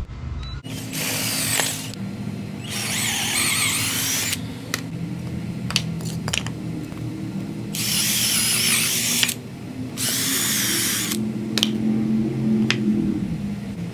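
Electric drill boring a bolt hole down through a stack of wooden boards. The motor runs steadily from just under a second in and stops near the end, with four spells of louder cutting noise as the bit is pushed into the wood, and a few sharp clicks in between.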